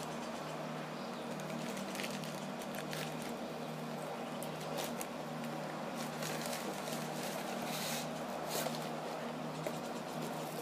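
Paper and packaging rustling and scratching as hands rummage through a mailed package, with scattered light clicks, over a steady low hum.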